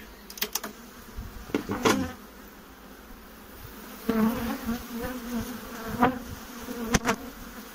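Honeybees buzzing around an opened hive. The hum swells about four seconds in as a bee-covered frame is lifted out. Sharp clicks of the metal hive tool against the wooden frames come near the start and twice near the end.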